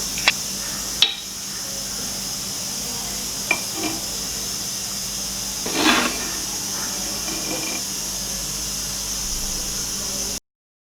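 Steady high hiss with a few light clicks and a brief rustling scrape about six seconds in, cutting off suddenly near the end.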